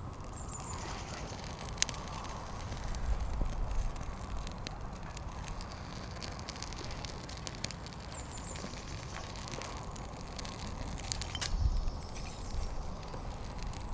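Small wood fire catching in a folding metal bushbox stove, with scattered crackles and clicks from the burning kindling and from sticks being handled. A sharp click about two seconds in, and a couple of low rumbles.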